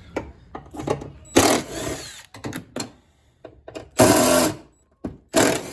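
A power tool run in three short bursts, with clicks and knocks of parts being handled between them.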